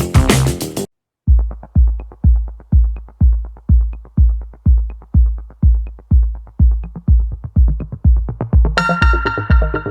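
Electronic intro music: a busy passage cuts off just under a second in, and after a short silence a steady drum-machine kick beat takes over, about two and a half beats a second with a light tick on every other beat, joined by bright synth tones near the end.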